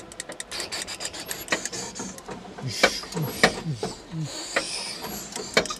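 Quick, irregular clicking and rattling of a fighter-jet cockpit's controls being worked by hand.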